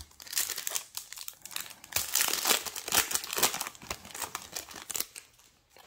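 Yu-Gi-Oh booster pack's foil wrapper crinkling and tearing as it is torn open by hand and peeled off the cards, a dense run of crackles that dies away about five seconds in.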